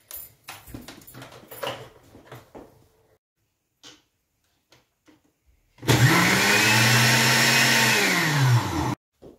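Countertop blender motor starting about six seconds in, rising in pitch as it spins up, running steadily for about three seconds while it purees onion, ginger, garlic, herbs and oil, then falling in pitch as it is switched off. Before it, a few light knocks and clatters of handling.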